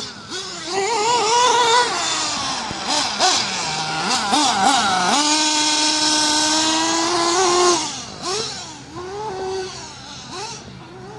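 Losi 8ight-T 3.0 1/8-scale RC truggy's motor under throttle, a high buzzing pitch that rises and falls in quick blips. About halfway through it holds high and steady for a couple of seconds, then drops and fades as the truck drives away.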